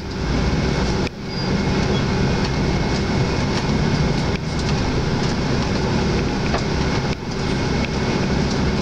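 Hyundai Universe coach's engine and road noise heard from inside the cabin, a steady low rumble while the bus moves slowly in traffic, with a brief dip about a second in.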